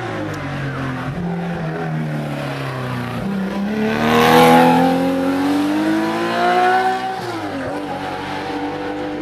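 Race car's engine, a Porsche 911 flat-six, with its revs falling as it slows for a bend. About three seconds in it accelerates hard past, the revs climbing and loudest just after it goes by. Near seven seconds the pitch drops suddenly with an upshift, and the engine pulls on at lower revs.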